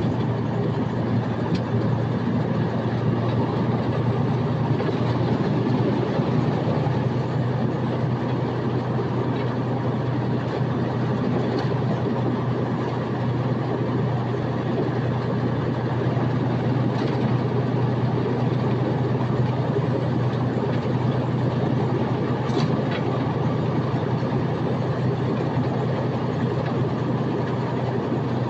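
Steady running noise of a Freightliner Coronado SD122 truck with a Detroit DD15 inline-six diesel, a constant low drone with a few faint ticks.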